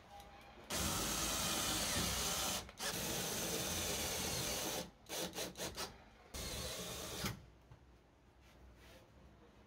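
Cordless drill boring into a plywood panel: two runs of about two seconds each, a quick string of short trigger bursts, then one shorter run, after which it stops.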